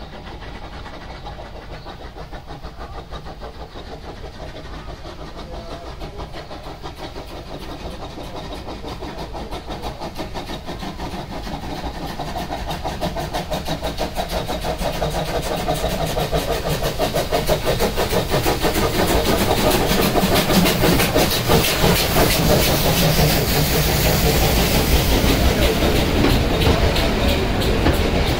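Small steam locomotive approaching and passing, its exhaust beats coming in a quick, even rhythm that grows steadily louder as it nears. Near the end its coaches run past with wheel and rail rattle.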